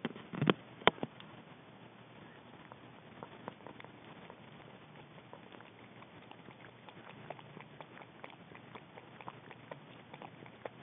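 Contact noise on a small camera worn by a cat: two sharp knocks in the first second, then many faint, irregular clicks and crackles as fur and grass brush against the microphone.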